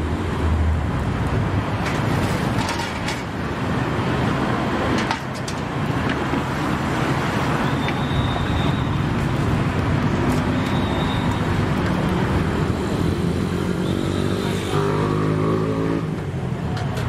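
Street ambience dominated by a steady rumble of road traffic. Near the end an engine's pitch rises.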